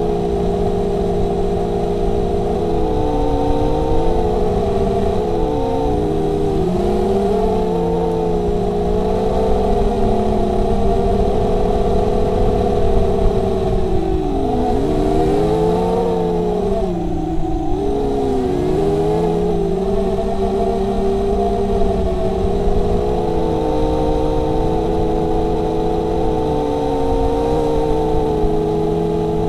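A 250-size FPV racing quadcopter's four brushless motors spinning 5040 propellers, heard from the onboard camera: a buzzing whine of several close tones that dips and swoops back up in pitch several times as the throttle is worked, over a rough low noise of prop wash and wind.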